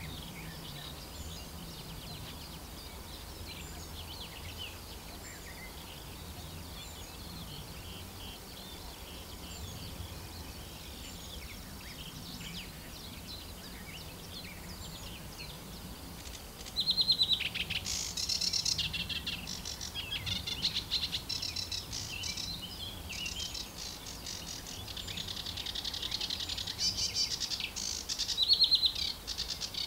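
Sedge warbler singing close to the microphone: a loud, fast, chattering song of rapidly repeated notes and buzzy trills that starts a little past halfway. Before that, only fainter distant birdsong.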